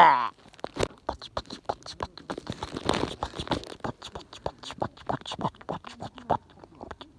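Bonfire crackling: burning wood giving off a quick, irregular stream of small pops and snaps, thinning out toward the end.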